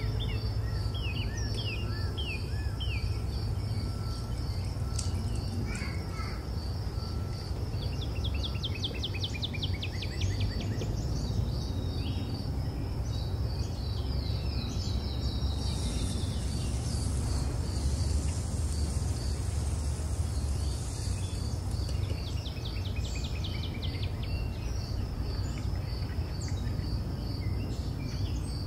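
Nature ambience: birds chirping and trilling at intervals over a steady, evenly pulsed high insect chirp and a constant low rumble.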